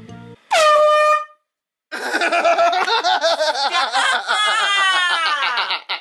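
An air horn gives one short, loud blast that rises in pitch as it starts and then holds steady. After a brief gap, a woman cries out loudly for several seconds.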